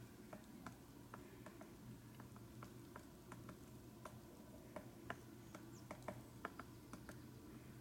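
Faint irregular taps of a woodpecker's bill pecking at tree bark, a couple of sharp ticks a second rather than a drumming roll, a few louder taps about five to six and a half seconds in.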